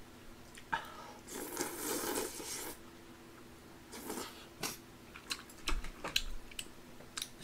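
Someone eating tteokbokki at close range. A long airy mouth sound of about a second and a half comes near the start and a shorter one around four seconds in, with scattered small chewing clicks.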